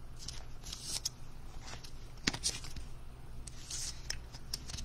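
A trading card being slipped into a soft plastic penny sleeve and pushed into a rigid plastic toploader: light clicks and scrapes of plastic, with short rustling slides about a second in and again near four seconds in.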